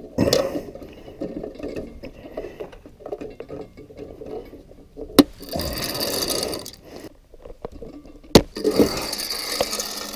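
Stanley hand rivet gun setting pop rivets: mechanical clicking and rattling as the handles are worked, with two sharp snaps, about five and eight seconds in, as the rivet mandrels break off.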